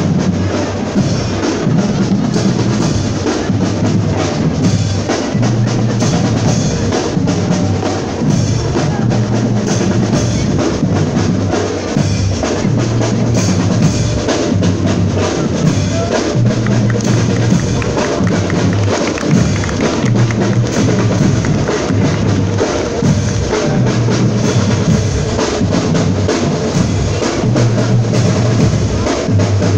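Marching band playing as it parades, its bass drums and snare drums to the fore, over a low line of sustained notes that change about every second.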